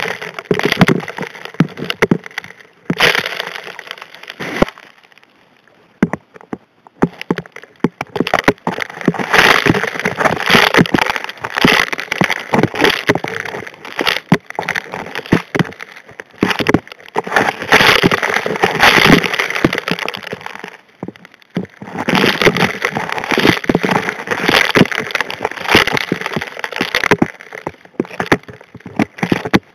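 Gravel and rocks clattering and knocking through the steel nozzle of a Model 625 HD P hand dredge as it suctions up riverbed gravel, heard underwater: long stretches of dense rattling, with a quiet pause about five seconds in and shorter lulls near twenty seconds and near the end.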